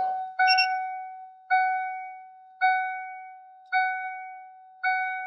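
Electronic warning chime beeping at one steady pitch about once a second, five beeps in all, each fading away quickly.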